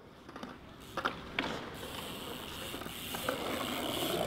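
BMX bike rolling over a concrete skatepark, the tyre noise growing steadily louder as it comes closer, with a few light clicks and knocks from the bike.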